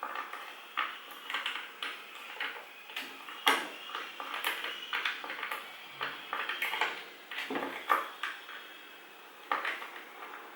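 Hard objects clinking and knocking irregularly as they are handled and set down, several sharp clicks a second with a light ringing after some of them.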